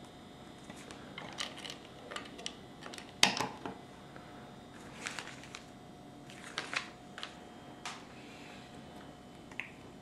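Small scattered clicks and taps of plastic LEGO pieces being handled and pressed together on a wooden tabletop, with one sharper knock about three seconds in.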